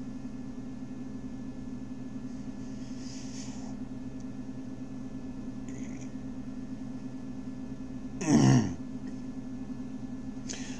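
A steady low hum, and about eight seconds in a man clears his throat once, loudly, a sign of the flu or pneumonia he has.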